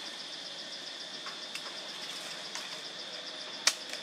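Steady insect chorus: a constant high buzz with a fast, evenly pulsing chirp above it. A single sharp click sounds near the end.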